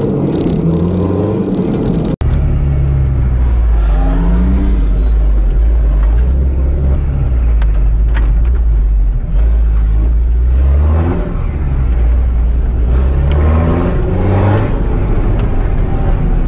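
Toyota Land Cruiser engine heard from inside the cabin, driving hard off-road: the engine note climbs in pitch under acceleration and then falls back at each gear change, several times over.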